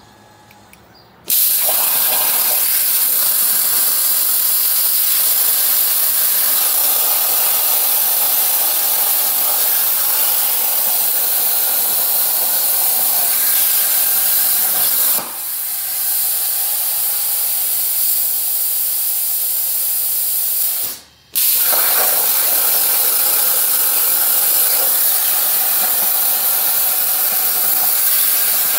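Hypertherm Powermax 1000 plasma torch cutting steel plate on a CNC table: a loud, steady hiss of the plasma arc starts about a second in. It dips briefly about halfway through, then about two-thirds through the arc cuts out for a moment and relights as the torch moves to the next part.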